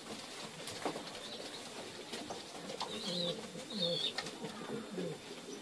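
Domestic fancy pigeon cooing, with a few short low coos in the second half.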